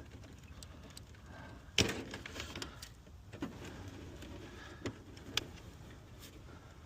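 A few light clicks and knocks from wire spade connectors being pushed onto a furnace control board's terminals, the sharpest about two seconds in, over a faint steady background.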